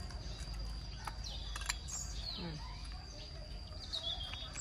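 Birds chirping outdoors, a few short whistled calls about a second in and again near the end, over a steady high-pitched tone and a low background rumble.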